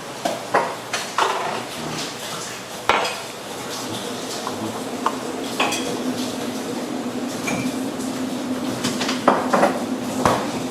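Dishes and cutlery clinking and knocking as they are handled, a dozen or so separate clatters. A steady low hum starts about four seconds in and stops near the end.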